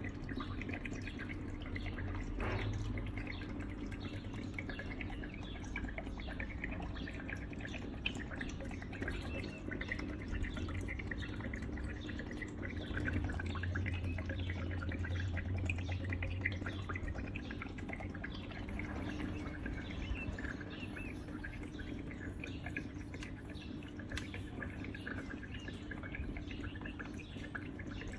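Water trickling and dripping steadily in a small tabletop decorative fountain, many quick plinks over a low steady hum.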